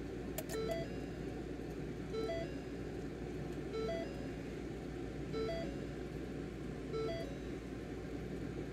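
A short electronic chime of a few quick notes, repeating about every second and a half five times, over a steady low hum.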